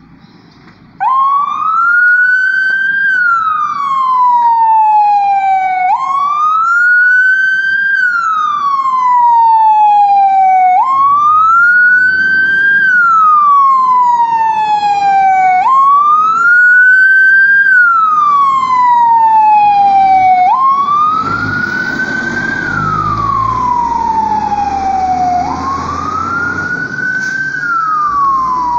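Fire engine siren wailing: a loud tone that rises quickly, then falls slowly and jumps back up, about every five seconds, starting about a second in. Later, a low rumble and a hiss come in underneath as the fire engine drives away.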